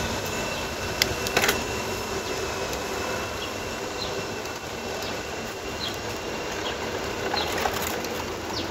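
Steady rolling rumble and wind noise of a bicycle ride on a paved cycle path, with a few sharp clicks and rattles about a second in.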